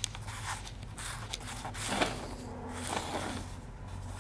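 Handling noise from a camera being picked up and repositioned: faint rustling and a few light knocks over a steady low hum.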